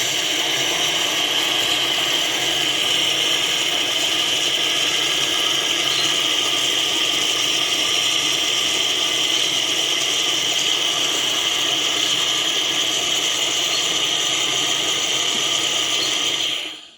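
Mr. Coffee cappuccino machine running its milk frothing cycle, dispensing frothed milk into a cup: a steady mechanical noise that cuts off suddenly near the end.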